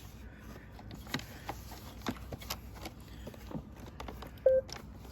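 Scattered light clicks, taps and rubbing as plastic Roomba parts are handled and wiped, with one short pitched blip about four and a half seconds in.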